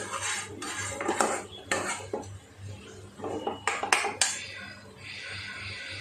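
A spatula scraping and knocking against a nonstick kadai while stirring chunks of meat curry, in strokes through the first two seconds and again around four seconds in, with a few sharp clinks near the pan's rim.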